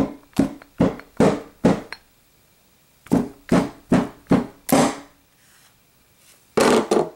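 Claw hammer beating down on a stuffed toy lying on a tabletop: about ten dull blows in two quick runs, roughly two blows a second, then a longer, louder burst near the end.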